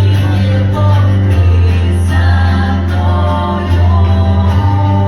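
Choral music: voices singing long held chords over a deep, steady bass, the chords changing every second or so.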